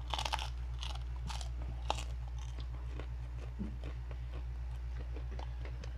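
Crisp crunching and chewing of chicharon, deep-fried pork rinds, being bitten: several sharp crunches in the first two seconds, then softer, sparser chewing. A steady low hum runs underneath.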